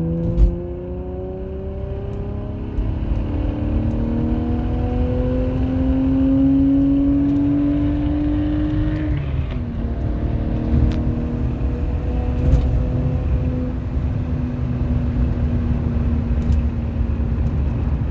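BMW E90 with an aftermarket exhaust accelerating, heard from inside the cabin: the engine note climbs steadily and drops at a gear change about nine seconds in, over road rumble. A few sharp knocks come as the car goes over bumps, with no creaking or popping from the door seals.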